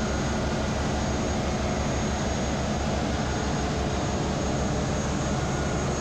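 Ship's engine-room din, chiefly the diesel generators that are already running: a loud, steady mechanical drone with a fast low throb underneath.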